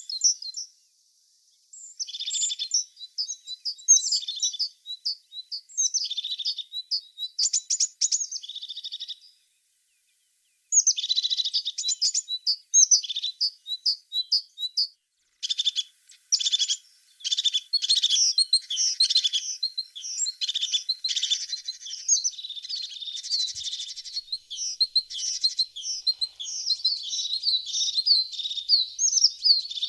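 A tit singing: rapid high-pitched chirps and trills in runs of phrases, broken by short pauses about one, nine and fifteen seconds in.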